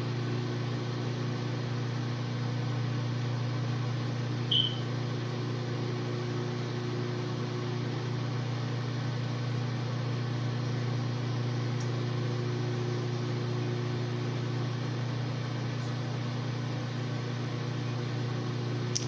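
Microwave oven running: a steady hum, with one brief high chirp about four and a half seconds in.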